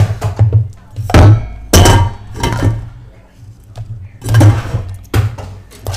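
A series of knocks and thuds on a wooden tabletop, about half a dozen irregularly spaced hits, as plastic Play-Doh tubs and hands strike the table near a desk microphone.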